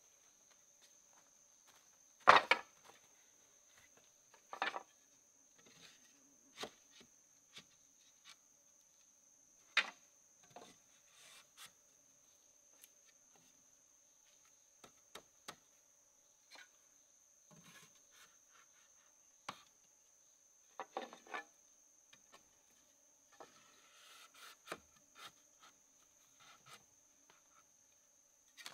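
Wood being handled and worked by hand: scattered single knocks and clacks of wood, the loudest about two seconds in, with short bouts of rubbing and scraping. A faint steady high whine runs underneath.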